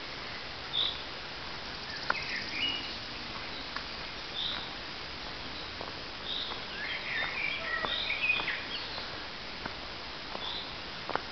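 Wild birds calling in woodland: scattered short chirps, with a busier run of calls in the middle, over a steady hiss. A few sharp clicks are heard here and there.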